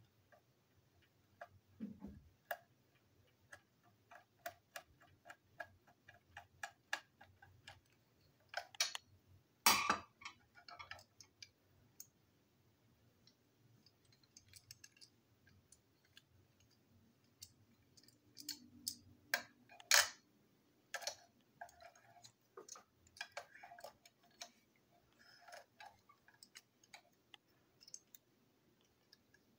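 Small clicks and ticks of a screwdriver working a screw in a toy train engine's plastic chassis and of the plastic parts being handled, with a run of evenly spaced ticks early on and two louder knocks, about ten seconds apart, of tools or parts set down on the table.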